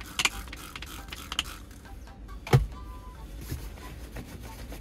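Cleaning at the inside of a car windshield: a few short hissy bursts in the first second or so, then one sharp knock about halfway through, the loudest sound, followed by brief squeaks against the glass.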